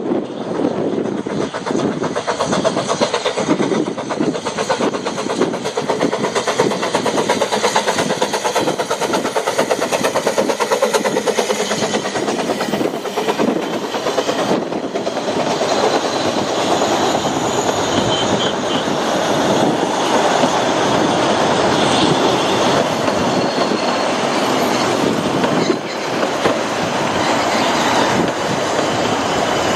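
Narrow-gauge steam train running past, its wheels clattering rapidly over the rail joints through the first half, giving way to a steadier rolling rumble with some high wheel squeal in the second half.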